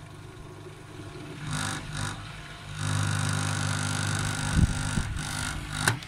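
LG front-loading washing machine's drain pump running dry, sucking air once the drum has emptied. About three seconds in it grows louder into a steady buzzing hum with a thin whine, setting the plastic front panel vibrating.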